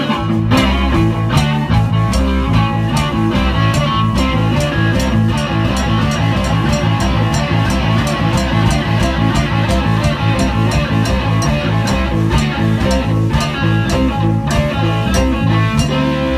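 Blues band playing live: electric guitar over a steady drum-kit beat and a moving bass line.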